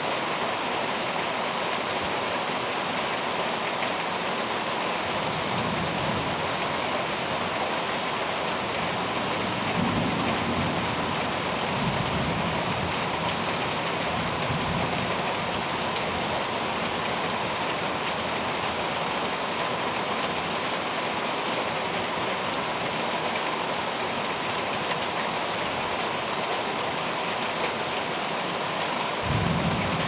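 Steady rain pouring onto leafy garden plants and the ground, with streams of water running off the foliage. A few low rumbles rise under it about ten seconds in and again near the end.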